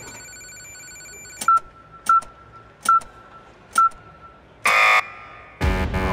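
Cartoon digital weighing scale beeping four times, a little under a second apart, as its reading ticks up, then a short harsh error buzzer that signals overweight. Near the end a louder, noisy sound begins.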